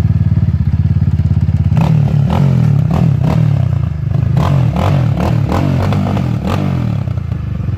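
Yamaha Raptor 700 ATV's single-cylinder four-stroke engine running with a steady low pulse, joined from about two seconds in by repeated clattering knocks.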